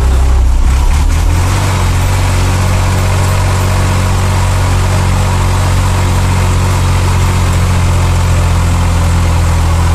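Massey Ferguson 240's three-cylinder diesel engine running under load, pulling about three tons. Engine speed rises about a second in, then holds steady.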